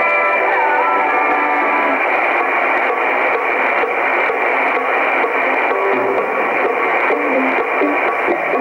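Shortwave pirate-radio music heard in upper sideband on 6940 kHz through a communications receiver, cut off above about 2.5 kHz. About a second in the music fades down into a steady hiss with light static crackles, and faint notes come back near the end.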